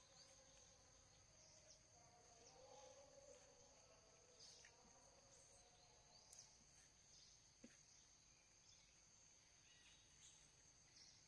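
Near silence, with a faint steady high-pitched insect drone, scattered short chirps and a soft click about two-thirds of the way through.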